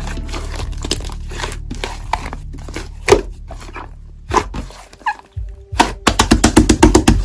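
Slime being squished and poked, a dense run of short, sticky popping and crackling clicks. Background music runs underneath and drops away about four seconds in, leaving the slime clicks alone, which come thickest near the end.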